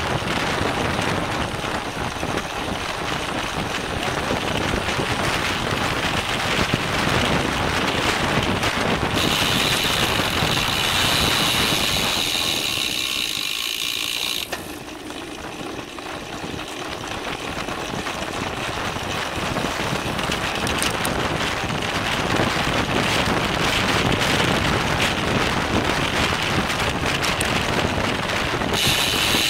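Wind rushing over a bike-mounted camera's microphone, with tyre and road noise from a racing bicycle at speed. For a few seconds near the middle a high steady buzz sits over it, then cuts off suddenly as the rush eases, before building back up.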